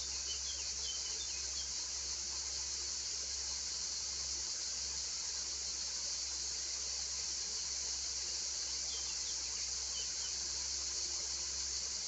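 Crickets chirping in a dense, unbroken chorus, a steady high-pitched trill. A few short chirps sound through it near the start and again about nine seconds in.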